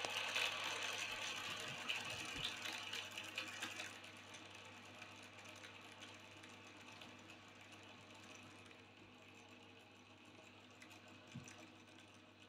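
Hand-spun fidget spinner whirring on its bearing, fading steadily as it slows down, with a sharper drop about four seconds in.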